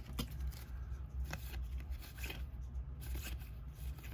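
Baseball trading cards being handled and flipped through in the hand: a few short flicks and slides of card stock, roughly one a second, as cards are moved from the back of the stack to the front.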